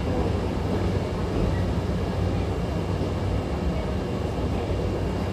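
Steady running noise inside a Hankyu commuter train car moving at speed, a low even rumble from wheels and running gear.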